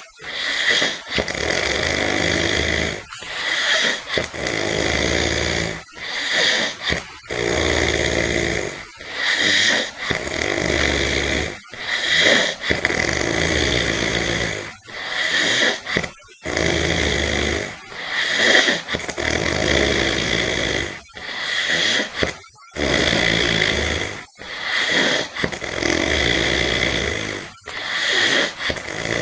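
Heavy snoring from a sleeper: loud, rasping breaths following one another about once a second, each cut off by a short pause.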